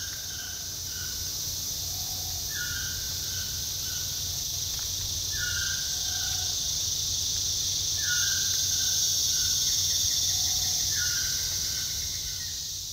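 Forest ambience: a steady high-pitched insect drone, with a bird call repeating about every three seconds, a short note followed by a slightly lower one. It fades out near the end.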